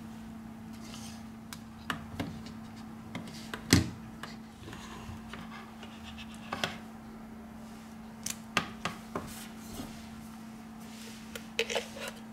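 Small tools and phone parts clicking, tapping and scraping as a Samsung Galaxy Note 4 is taken apart by hand, with scattered light clicks and one sharper knock a few seconds in. A steady low hum runs underneath.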